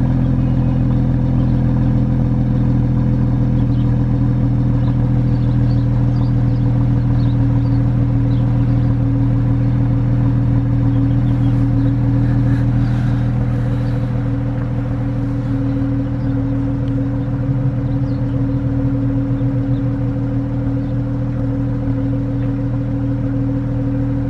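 BMW X3 M40i's 3.0-litre turbocharged inline-six idling steadily at the exhaust tips after a cold start, with no revving; it settles a little quieter about halfway through.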